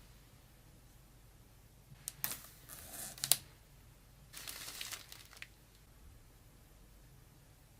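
Handling noise: a short burst of rustling and crinkling with several sharp clicks about two to three seconds in, then a second rustling burst a little later.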